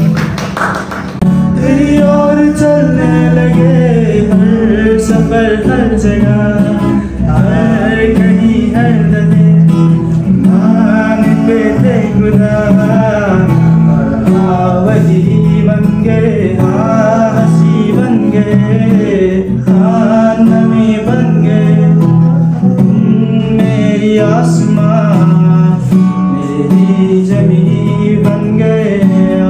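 A man singing while playing an acoustic guitar, in phrases that rise and fall over a steady, repeating guitar accompaniment.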